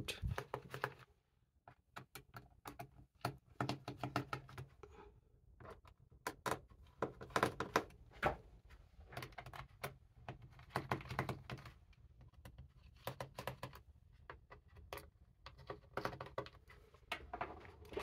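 Irregular light clicks and ticks of a small screwdriver working the captive screws in a laptop's bottom cover, with the tool tip tapping and turning in the screw heads.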